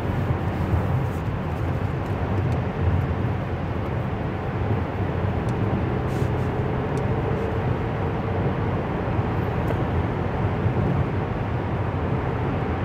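Steady engine and road noise heard from inside a moving car, a low rumble with no speech over it.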